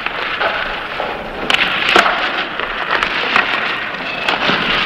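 Ice hockey game sound: a steady crowd din in the arena, with sharp clacks of sticks and puck on the ice, the loudest about a second and a half to two seconds in.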